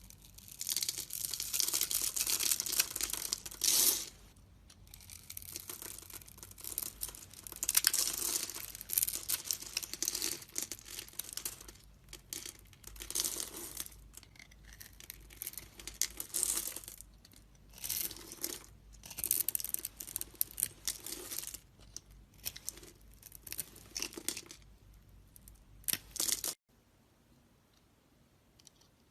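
A blade cutting into a bar of soap: a series of crisp, scraping cuts of one to a few seconds each, with short pauses between them. The sound stops abruptly a few seconds before the end.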